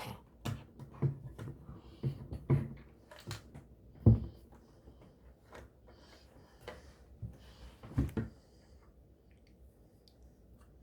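Handling noise of objects being taken out and moved about: irregular knocks, clicks and rustling. The loudest knock comes about four seconds in, another about eight seconds in, and it goes quiet near the end.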